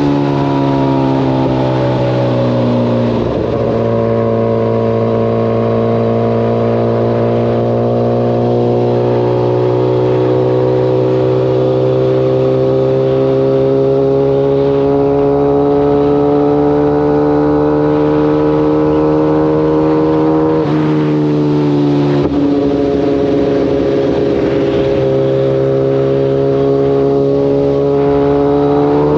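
Kawasaki ZX-14's inline-four engine running, its pitch drifting slowly up and down, with changes in engine note about 3 seconds in and again around 21 to 22 seconds.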